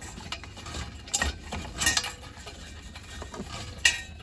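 Small metal parts of a patio heater head being handled as new thermocouple wires are pushed through: light clinks and rattles, with sharper clicks about a second in, around two seconds in, and near the end.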